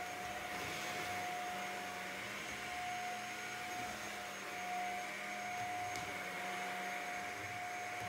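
Shark Apex DuoClean stick vacuum with Zero-M brushroll running while it is pushed over a woven area rug: a steady motor whine over the rush of suction, at an even level.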